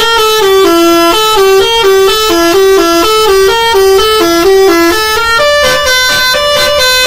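A loud tune played one note at a time, each note held briefly and stepping up and down without a break, in a bright, horn-like tone.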